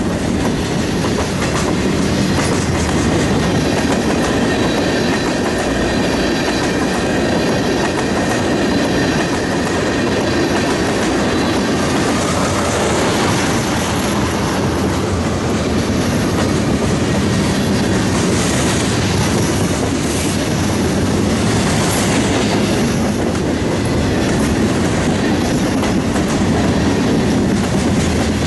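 Freight cars of a mixed freight train rolling past close by: a steady loud rumble with the clatter of wheels over the rail joints. A thin high squeal from the wheels rides over it through roughly the first half.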